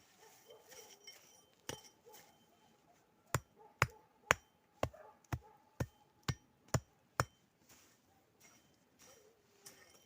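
A hatchet striking hard, about ten sharp blows: one at first, then a steady run of roughly two a second that stops a little after the middle.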